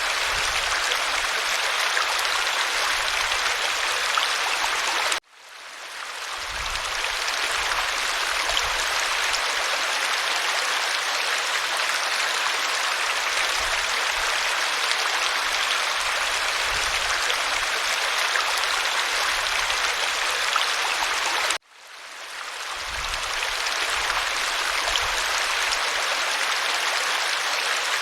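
Waterfall: a steady rush of falling water. It cuts out abruptly about five seconds in and again about twenty-one seconds in, and each time fades back in over a second or two.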